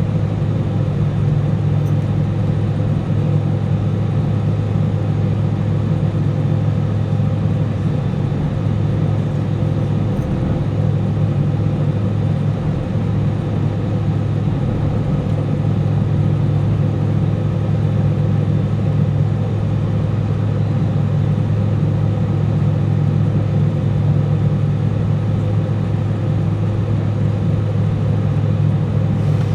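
Airbus A319 airliner cabin noise: a steady, loud jet-engine and airframe drone with a deep hum that holds level throughout.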